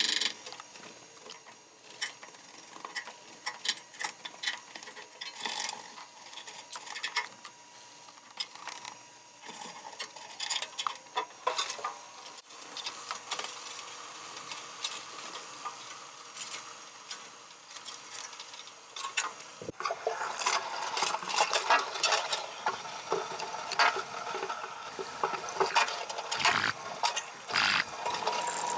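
Irregular clicks, clinks and clatter of hand work on a washing machine, with parts and tools being handled. It gets busier and louder about two-thirds of the way through.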